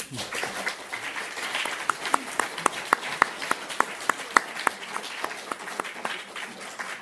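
Audience applauding, with one pair of hands clapping louder and close to the microphone at about three claps a second through the middle; the applause dies away near the end.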